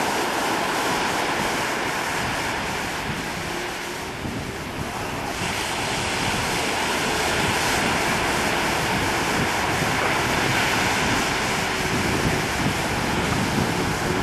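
Wind buffeting the microphone over the steady rush of choppy sea and breaking surf, with a brief lull about four seconds in.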